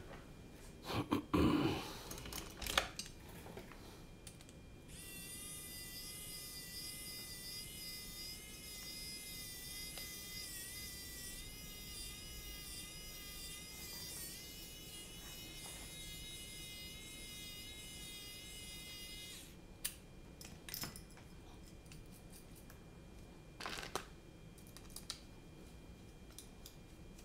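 Clicks and light knocks of small screws and carbon-fibre drone-frame parts being handled and fitted with a hex driver. For about fifteen seconds in the middle, a steady high whine of several tones plays underneath, then stops.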